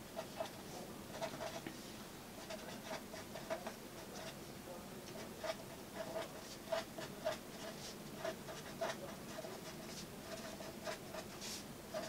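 Felt-tip pen writing on paper: faint, short squeaking and scratching strokes in quick irregular runs.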